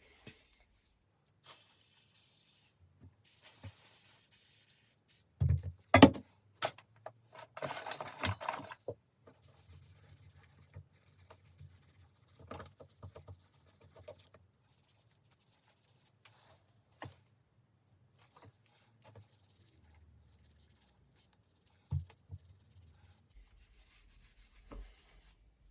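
A rag wiping and rubbing the grease and grime off a vintage Sturmey-Archer AG Dynohub, with scattered clicks and knocks as the heavy hub is handled; the loudest are a few sharp knocks about six seconds in.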